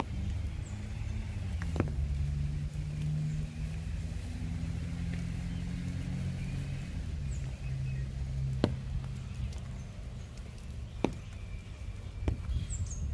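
Walking footsteps on a wet brick-paved path over a low steady rumble with a faint hum, broken by a few sharp ticks and faint bird chirps.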